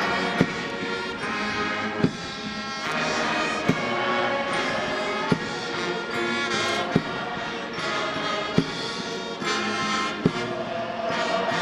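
Brass band playing a piece of sustained brass chords, with a sharp drum-like stroke about every second and a half.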